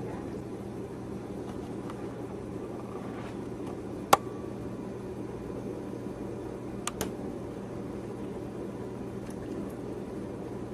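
Steady low room hum and hiss, with one sharp click about four seconds in and a fainter pair of clicks about three seconds later.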